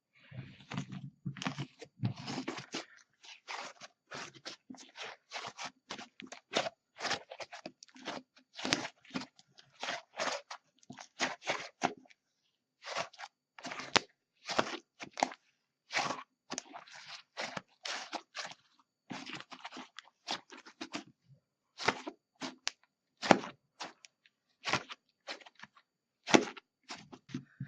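Slime with clay mixed in being squeezed and kneaded by hand, giving irregular sticky clicks and crackling pops, several a second with short pauses between handfuls.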